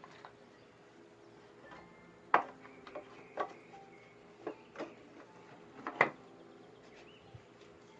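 Wooden knocks and clunks of shavehorse parts being removed and fitted back in place: a handful of irregular sharp knocks, the loudest about two and a half and six seconds in.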